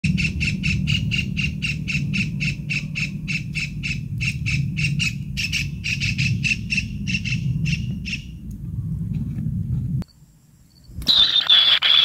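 Kingfisher calls, one short note repeated about four times a second, over a low rumble; the calls fade out after about eight seconds. After a brief gap, the nestlings' loud, continuous begging screech starts near the end.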